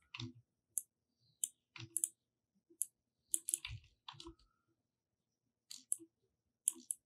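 Computer mouse clicks: a scattered, irregular series of faint, sharp clicks with a short pause in the middle.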